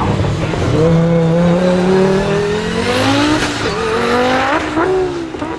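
Audi S2 R hillclimb car's turbocharged five-cylinder engine accelerating hard out of a hairpin. The revs climb for about two and a half seconds with a high whistle on top, dip briefly at a gear change about three and a half seconds in, climb again and fall off near the end.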